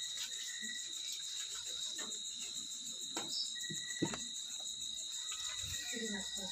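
Night insects, crickets among them, trilling: a steady high trill, with a lower chirping line that comes and goes. A few soft knocks, the loudest about four seconds in.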